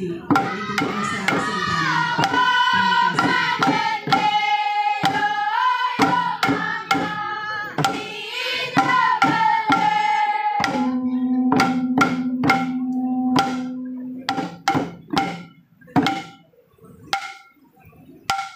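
Papuan welcome-dance song sung by a group in chorus, with regular beats on tifa hand drums. About eleven seconds in, one long held note sounds over the drums for a few seconds. Then the singing stops and the tifa drums beat on alone, about two strokes a second.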